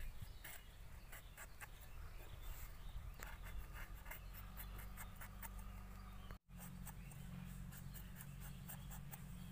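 Pointed gourds being peeled on a boti, a curved blade fixed upright on a wooden base: faint, quick scraping strokes of the blade across the gourd's skin over a low steady hum, broken by a brief dropout to silence about six seconds in.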